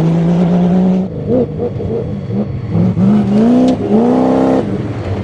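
Cross-country rally car engine under hard throttle. It holds a steady note at first, then about a second in the revs bob quickly up and down. A long rising rev follows and breaks off near the end, with a sharp click partway through the rise.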